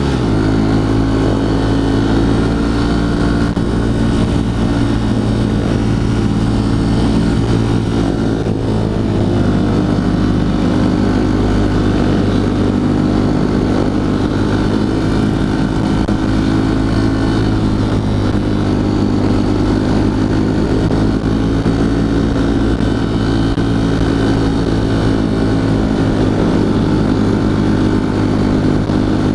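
Honda CRF150L's single-cylinder four-stroke engine running at steady revs while the motorcycle is ridden, its note holding nearly constant throughout.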